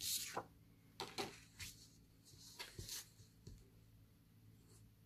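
Paper handling on a wooden tabletop: a short swish as a card of watercolour paper is slid away, then a handful of light taps and clicks as the next page and the marker pen are set in place.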